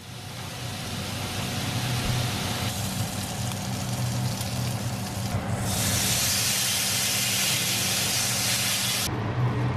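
Thick-cut rump steak sizzling on a hot ridged grill pan: a steady hiss that grows louder and brighter about halfway through, then eases back near the end, over a steady low hum.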